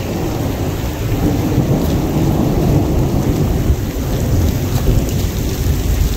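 Heavy pouring rain, with a loud, steady low rumble under it.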